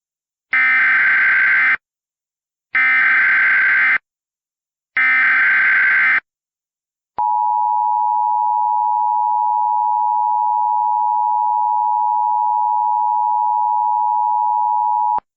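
Emergency Alert System tones. First come three SAME header data bursts, each about a second long with about a second of silence between them, which mark the start of a new alert. About seven seconds in, the steady two-tone EAS attention signal (853 and 960 Hz) begins, holds for about eight seconds, then cuts off suddenly.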